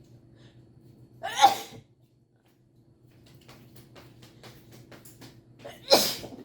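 A person sneezing twice, set off by a nasal swab up the nose: one sneeze about a second in and a second near the end, with faint short ticks in between.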